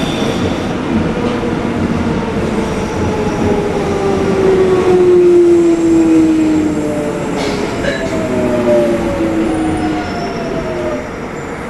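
Jubilee Line 1996 Stock train slowing into a station, heard from inside the carriage: the traction motors whine in several tones that fall in pitch over the rumble of wheels on rail. It quietens near the end as the train draws to a halt.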